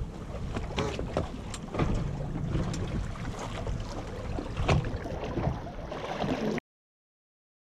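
Wind buffeting the microphone over the low rumble and water noise of a boat at sea, with scattered knocks and clicks. The sound cuts off abruptly to silence about six and a half seconds in.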